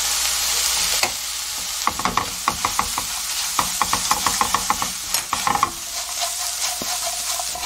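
Dried young hairtail sizzling in oil in a frying pan while a silicone spatula stirs in gochujang. A steady sizzle opens it, then from about two seconds in the spatula scrapes the pan in quick repeated strokes, several a second.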